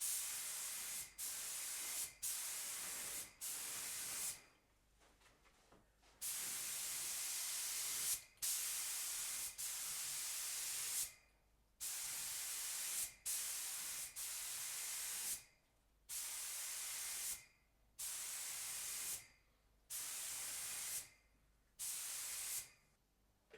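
Compressed-air paint spray gun hissing in repeated trigger pulls of one to two seconds each, over a dozen in a row with brief gaps and one pause of about two seconds near the start, as paint is laid on a car in passes.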